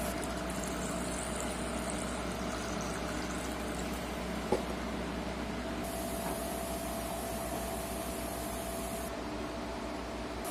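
Cleaning solvent poured from a plastic jug into the ink tank of a Citronix 3300 continuous inkjet printer during the first few seconds, over a steady mechanical hum. A single sharp click about four and a half seconds in.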